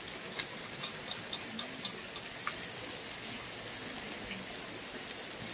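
Makchang (pork intestines) and pork belly sizzling in fat on a round griddle pan: a steady hiss with scattered small pops.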